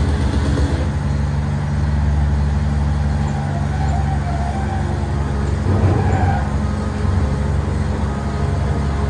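Drilling rig engine running steadily under load, its pitch shifting slightly about a second in and swelling briefly about six seconds in.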